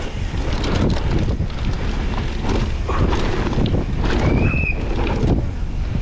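Downhill mountain bike ridden over rough ground: wind buffeting the microphone, with rapid rattles and knocks throughout, and a short high squeal about four and a half seconds in.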